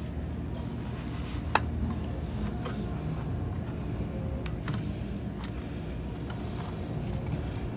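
Utility knife blade cutting vinyl wallcovering along a metal trim guide: faint scraping with a few sharp ticks, the loudest about a second and a half in, over a steady low hum.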